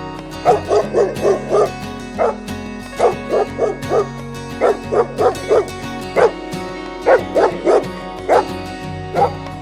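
Dog barking in quick runs of three to five short barks, over background music with steady low notes.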